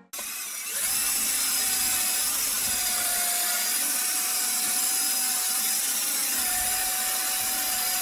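Bosch 12-volt lithium-ion cordless drill boring into brick: the motor speeds up over the first second, then runs steadily with a high whine that sags slightly in pitch now and then, over the bit's grinding in the masonry.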